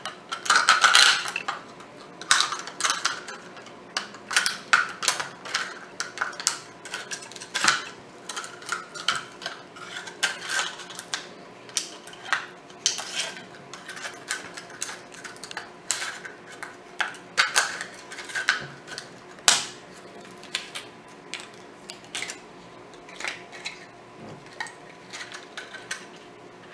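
Scissors cutting around a thin plastic water bottle: an irregular run of sharp snips with the plastic crackling. The snips are loudest about a second in and again near twenty seconds in, and grow sparser toward the end.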